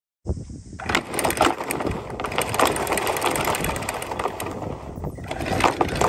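Maxwell RC10 electric anchor windlass running, hauling chain so that the links clatter and clank over the gypsy; it starts suddenly and runs steadily with many sharp metallic clicks. It is working again after a new chain stripper was fitted.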